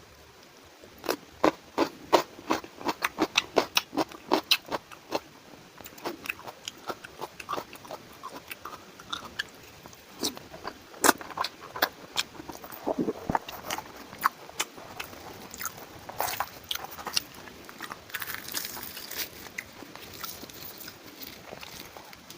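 A person eating close to the microphone: crunchy bites and chewing, with a quick run of crunches at about four a second in the first few seconds, then slower, scattered crunches and mouth sounds.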